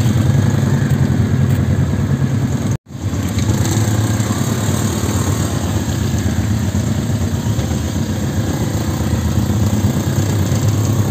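Homemade tractor's Lifan 6.5 hp single-cylinder four-stroke engine running steadily as it drives along a dirt track with two riders aboard. The sound cuts out for an instant about three seconds in.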